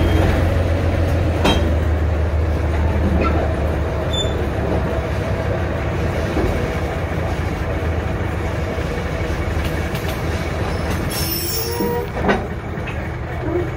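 Open-air passenger car rolling along a short railroad: a steady low rumble of wheels on rail with scattered clicks. A brief high wheel squeal comes near the end, followed by a sharp clank.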